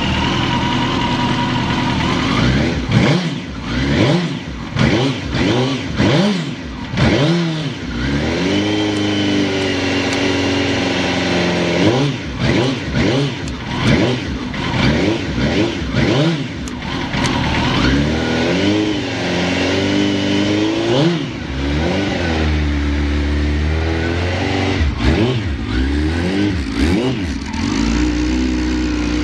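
Suzuki GSX-R1000 inline-four engine idling for about two seconds, then revved again and again, the pitch rising and falling with each throttle blip, a few revs held for a couple of seconds. In the seller's check it idles stably with no abnormal noise.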